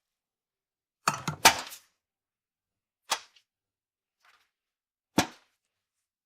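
Cartoon foley sound effects: a handful of sharp, separate knocks and clatters with silence between them. A cluster of several comes about a second in, single ones about three and five seconds in, and a faint one in between.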